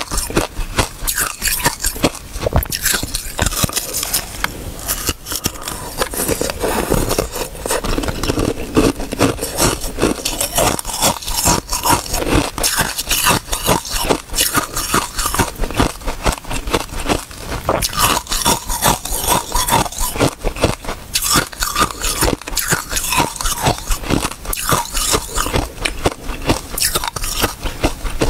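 Close-miked biting and chewing of ice frozen with basil seeds: a dense, continuous run of sharp crunches and cracks as the ice is bitten off and crushed between the teeth.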